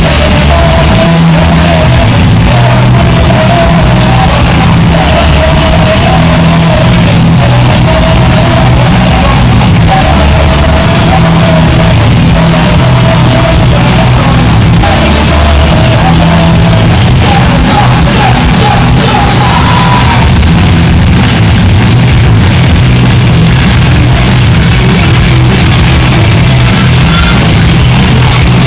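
Live punk rock band playing very loud: distorted electric guitar, bass and drums, recorded close to the stage at near full level.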